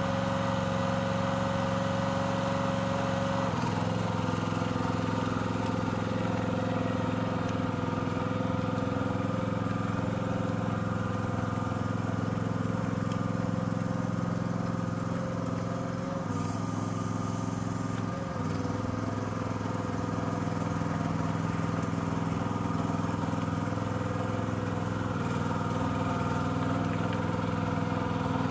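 Small engine of a FORT Alien HY 5.2 tracked mini dumper running steadily as the machine is driven. Its note changes slightly about four seconds in and again a little past the middle.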